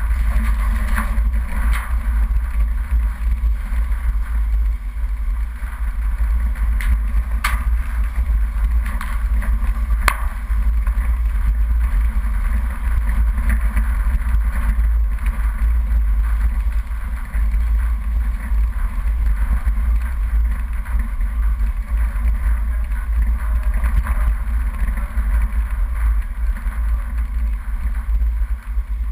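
Off-road 4x4 driving over a rough dirt track: a steady deep rumble of engine and running gear, with two sharp clicks about two and a half seconds apart.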